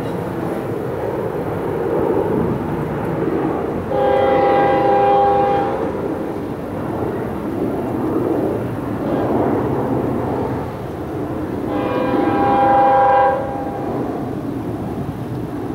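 Locomotive air horn sounding two long blasts of several tones at once, each about one and a half to two seconds, the second about eight seconds after the first, over a steady low rumble from the approaching train.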